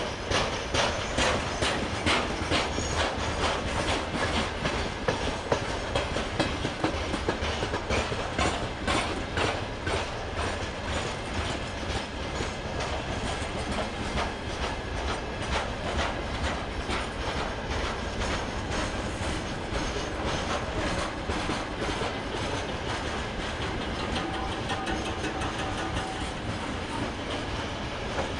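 Freight train of covered hopper wagons rolling steadily past, wheels clattering rhythmically over the rail joints under a continuous rumble.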